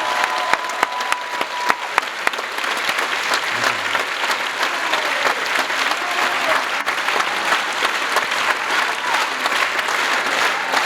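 Concert audience applauding, dense steady clapping. A thin held high tone dies away about two seconds in.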